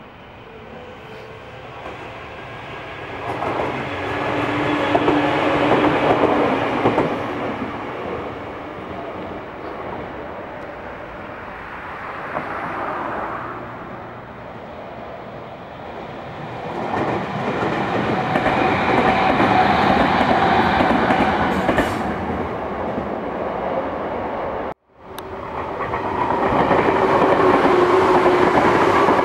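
Red Meitetsu electric train running through the station: the rumble and clatter of wheels on rails swells and eases as train noise passes, with a steady motor or wheel whine on top. The sound cuts out abruptly for a moment about three-quarters of the way through, then comes back loud as the train passes close by.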